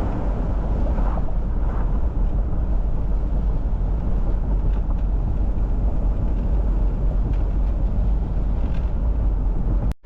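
Steady low road and engine noise of a vehicle driving, with no marked changes.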